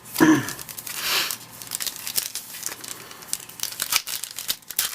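A 2010 Bowman Platinum trading card pack wrapper being torn open and crinkled in the hands: irregular crackling and rustling with sharp little clicks throughout.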